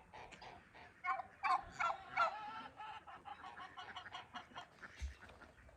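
Barnyard poultry clucking: a run of loud, pitched calls about a second in, then softer clucking.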